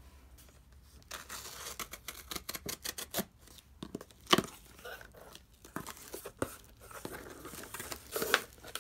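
Packing tape being picked at and torn off a cardboard shipping box, in a run of ripping and scraping noises with one sharp loud rip about four seconds in. Near the end the cardboard flaps are pulled open.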